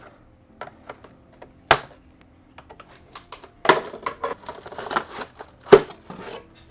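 Foam packing blocks being handled and pulled out of the ReefBot water-testing unit's enclosure: scattered clicks and knocks, a sharp knock about two seconds in, then rubbing and scraping through the second half with a loud knock near the end.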